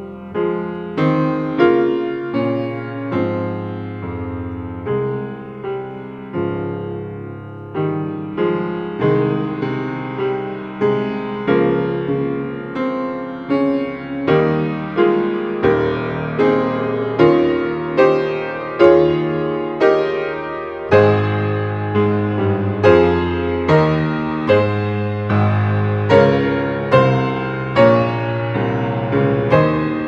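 Solo piano playing a slow, gentle piece, each note struck and fading, about one or two notes a second over a bass line that grows fuller about two-thirds of the way through.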